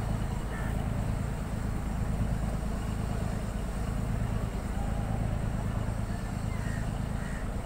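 Boat engine running with a steady low drone, heard from on board the launch.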